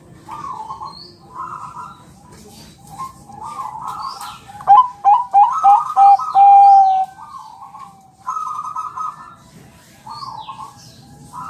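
Zebra dove (Bangkok-strain perkutut) cooing in repeated rolling phrases, with a louder phrase about halfway through that ends in a long held note. Faint high chirps of small birds sound behind it.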